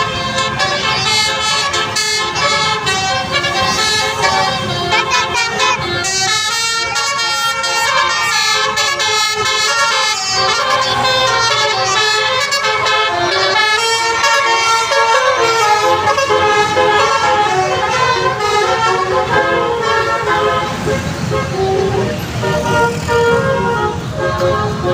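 Bus telolet horn: a multi-tone musical air horn playing a tune of held notes that step from pitch to pitch, sounding almost without a break.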